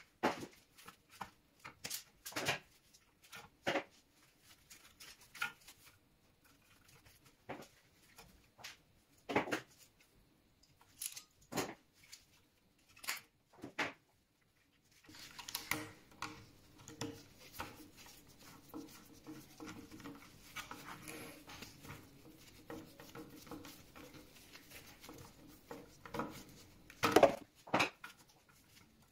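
Scattered clicks and taps of gloved hands handling and trimming blue electrical wires in a small plastic distribution box. About halfway through, a faint steady hum comes in under the handling noise, and a cluster of louder clicks comes near the end.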